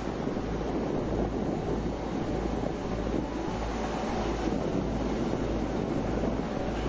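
Steady low rumble with a rushing hiss from a large vehicle running.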